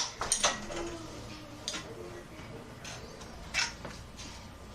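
Door-security bar clicking and knocking against the door and floor as it is manoeuvred into place. There are a handful of separate knocks, the sharpest at the very start and about three and a half seconds in.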